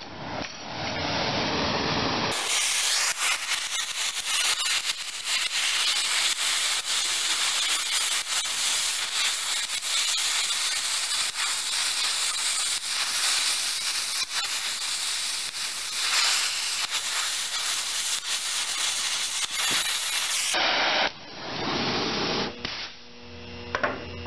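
Oxy-acetylene torch flame hissing steadily as it melts a piece of rock, with a couple of brief dips in the hiss near the end.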